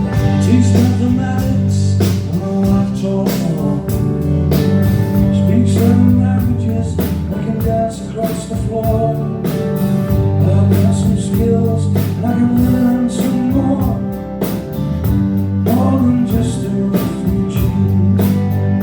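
Live band playing a song: guitars, bass and drums keeping a steady beat under a lead vocal.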